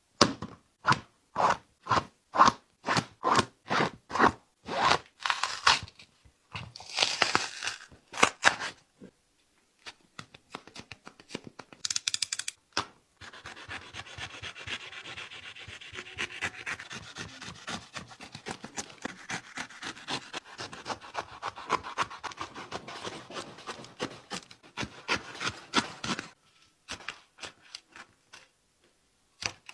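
A Nike Vaporfly Next% 3 replica running shoe is pressed over and over, giving short creaks about two or three times a second: the abnormal noise the reviewer suspects comes from unevenly glued double foam layers in the midsole. Then comes a long stretch of rubbing and scraping as the shoe is handled and worked apart.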